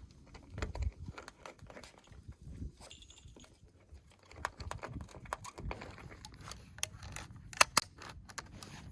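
Scattered clicks, knocks and rustling of things being handled, with a few sharper clicks close together near the end.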